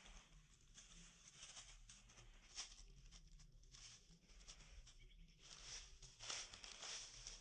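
Faint rustling and crackling of dry fallen leaves being stirred, in irregular bursts with a few sharper crackles.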